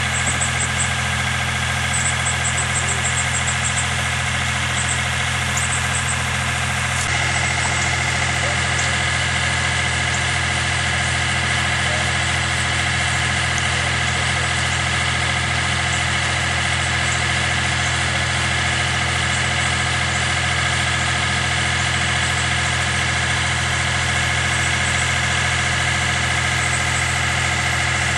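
Utility bucket truck's engine running steadily at idle, a constant droning hum whose tone shifts slightly about seven seconds in.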